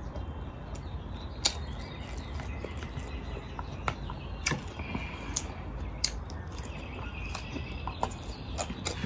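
Eating sounds at close range: scattered small clicks and smacks about once a second as fingers work rice on a ceramic plate and the mouth chews, over a steady low hum.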